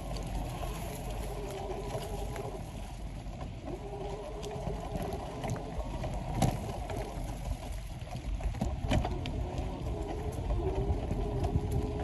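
Bicycles rolling over a dirt trail strewn with dry leaves: a steady low rumble of tyres and riding noise, with a few sharp knocks and rattles from bumps, the loudest about six and a half seconds in.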